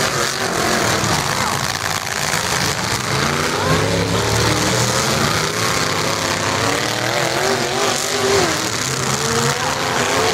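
Engines of several demolition derby trucks running and revving together, their overlapping pitches rising and falling as the trucks accelerate and back up in a dirt arena.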